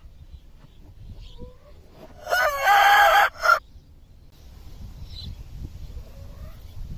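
A rooster crows once, about two seconds in: a loud call of about a second, then a short final note just after it.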